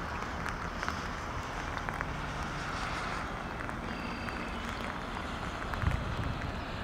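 Wind noise on the microphone: a steady low rumble and hiss, with a few faint clicks.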